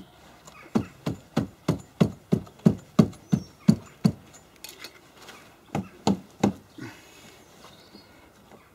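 A rapid run of knocks, about three a second, then a short pause and four more: a homemade pry tool being worked in under a plastic rivet on a car's wheel-arch trim, and knocking against it.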